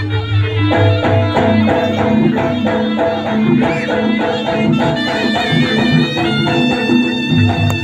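Jaranan ensemble music: a reedy wind instrument plays a melody over quick repeated pitched percussion notes and a low sustained drone.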